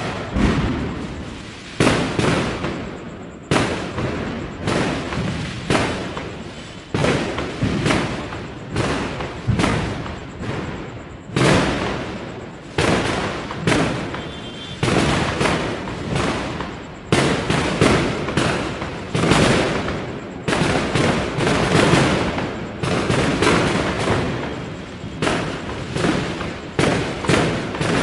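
Firecrackers going off one after another, a sharp bang every second or two, each trailing off in a long echo that runs into the next.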